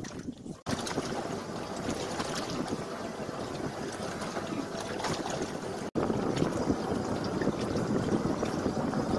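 Steady rushing of wind on the microphone mixed with water washing against a small fishing boat's hull. The sound cuts out for an instant twice, a little louder after the second break.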